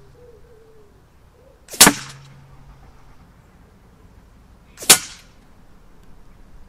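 Two shots from an Umarex UX Syrix .177 gas-ram break-barrel air rifle, about three seconds apart, each a sharp crack that dies away quickly. A low hum lingers for about a second after the first shot.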